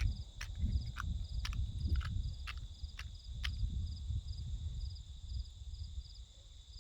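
Steady outdoor insect chorus, with short chirps repeating every fraction of a second. During the first three and a half seconds there is also a series of sharp clicks, about two a second.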